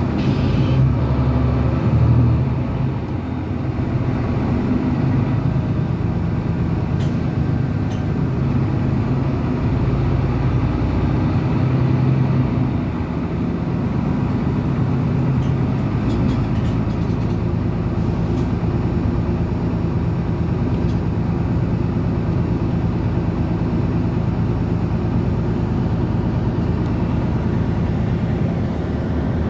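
Mercedes-Benz articulated city bus heard from inside while under way: a steady low drone of drivetrain and tyre noise, with a slight swell about two seconds in.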